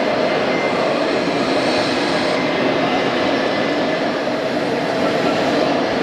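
Steady, even din of a busy exhibition hall, a continuous loud rumbling noise without breaks, with faint steady whining tones above it.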